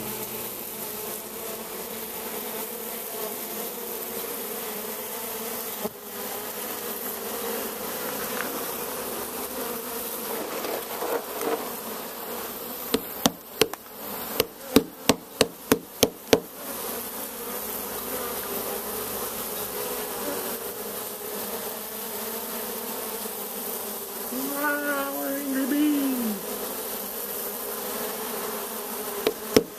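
A colony of honeybees nesting in a wooden wine barrel, buzzing steadily at the hive entrance. A little before halfway comes a quick run of about ten sharp taps. Near the end one buzz swells louder and drops in pitch.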